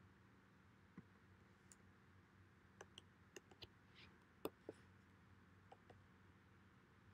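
Faint clicks of a computer keyboard and mouse: a scattered run of keystrokes, densest in the middle, over a low steady hum.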